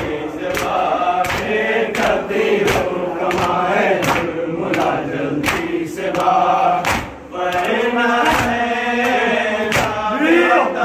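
A crowd of male mourners chants a noha in unison over rhythmic matam, hands slapping chests together in a steady beat about three strokes every two seconds. The chanting drops away briefly about seven seconds in.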